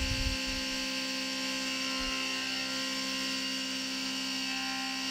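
CNC milling machine's spindle running with an end mill cutting a steel gasblock under flood coolant: a steady hum of several held tones over an even hiss of coolant spray.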